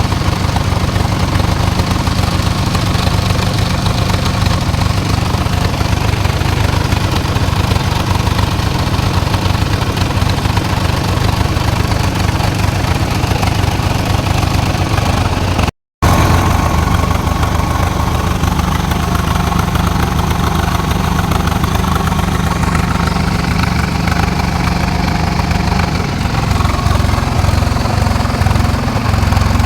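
Small engine running steadily at a constant speed, with a short dropout about halfway through.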